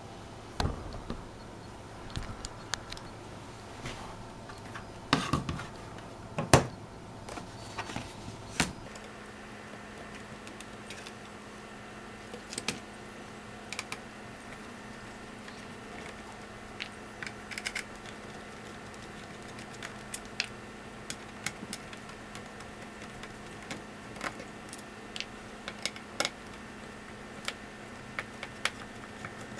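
Scattered sharp clicks and taps of a plastic Netgear WGR614 wireless router case being opened and handled, over a faint steady hum.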